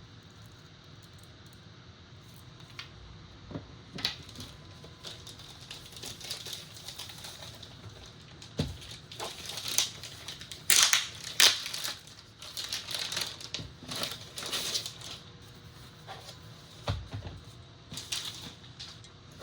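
Packaging being handled: irregular crinkling and rustling with scattered clicks and a few dull knocks, busiest around the middle.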